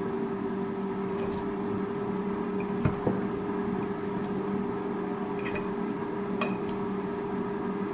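Wooden chopsticks and a metal fork tossing chunks of avocado and red pepper in a glass bowl, with a few light clinks against the glass, over a steady electric hum.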